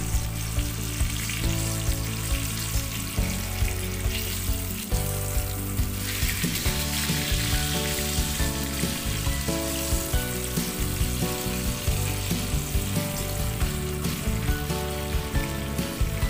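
Fish fillets in a flour coating sizzling as they shallow-fry in bubbling oil. The sizzle grows louder about six seconds in. Background music with a steady beat plays under it.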